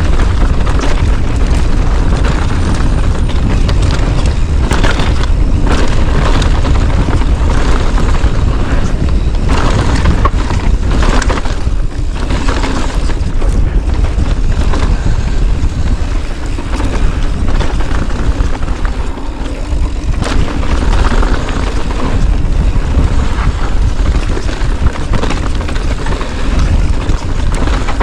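Loud, steady rumble of a moving vehicle heard through an action camera's microphone, heavy wind buffeting on the mic.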